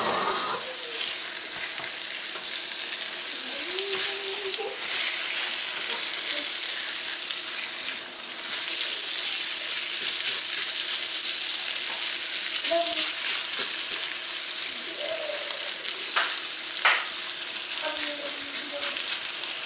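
Beef with minced garlic and ginger sizzling in a wok over high heat, stirred with a silicone spatula, with two sharper scraping strokes near the end.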